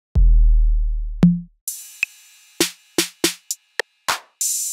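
Sampled Roland TR-808 drum sounds, warmly processed, triggered one at a time. A long, deep 808 kick booms and slowly dies away, a higher tom-like hit comes in about a second in, then a hissing cymbal and a quick run of short percussive hits follow, ending in a short burst of noise.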